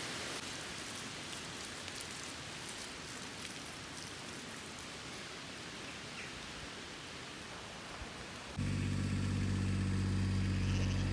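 Steady rain falling, an even hiss with scattered raindrop ticks. About eight and a half seconds in it gives way suddenly to a louder, steady engine hum.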